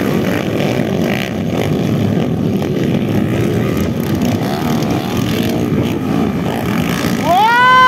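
A pack of underbone motorcycles racing around a dirt motocross track, their engines running together in a dense drone. Near the end one bike close by revs sharply up and back down.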